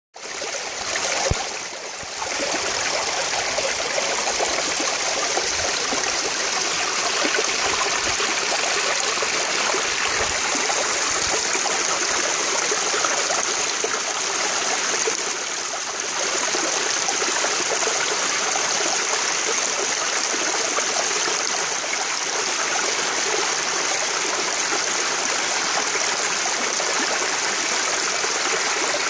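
Small rocky creek running and trickling over stones: a steady rush of water. A brief knock comes about a second in.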